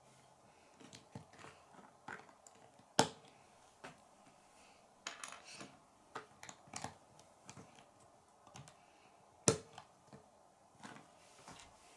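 Plastic Lego pieces clicking and tapping as they are handled and pressed onto a build on a wooden tabletop: a scatter of light clicks, with two sharper, louder clicks.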